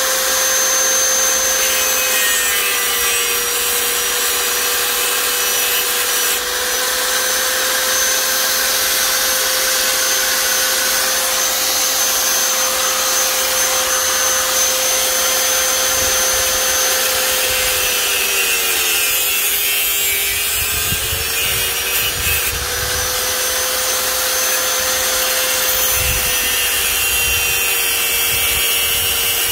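A small electric power tool runs steadily with a rasping, grinding noise. Its motor pitch sags briefly about two-thirds of the way through, and there are a few dull low knocks in the second half.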